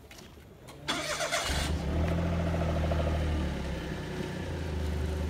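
Car engine starting: a brief crank about a second in, then it catches and idles steadily, running a little higher at first before settling.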